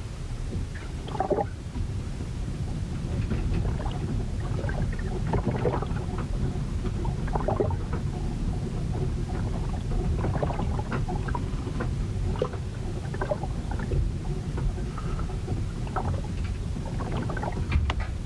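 Sea storm heard aboard a ship: a dense low rumble of wind and waves, with many short scattered splashes and knocks on top.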